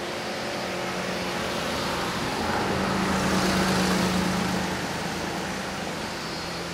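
Mountain river rapids rushing steadily over rocks. Over this, a motor vehicle's engine hum swells from about a second in, is loudest around the middle, then fades as it passes.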